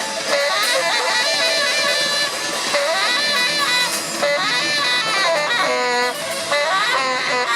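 Live band playing an instrumental passage, a lead instrument running through quick melodic lines over the band.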